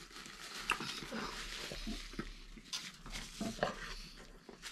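Faint table-side handling sounds while eating: a paper napkin rustling and small scattered clicks and taps.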